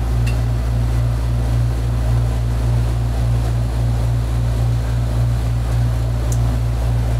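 Steady low mechanical hum, like a motor or pump running, with a faint even pulsing.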